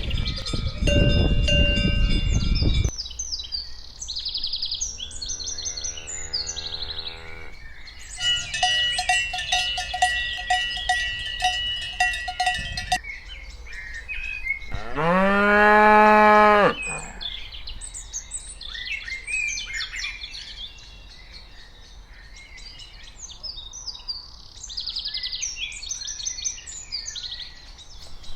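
Cattle mooing: one long loud moo rising and falling in pitch about halfway through, a lower moo earlier on and another starting at the end. Cowbells ring for several seconds in between, birds chirp throughout, and a rushing noise fills the first few seconds.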